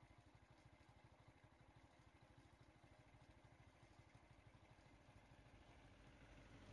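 Faint vehicle engine idling, a rapid, even low throb that grows louder toward the end as another vehicle draws close.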